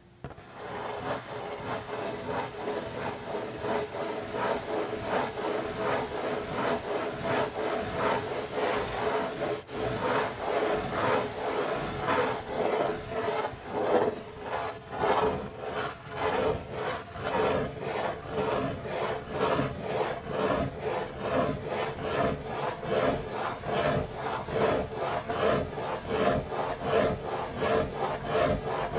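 Fingers scratching in circles on the lid of a corrugated cardboard pizza box: a continuous run of quick, rhythmic scratching strokes that starts abruptly.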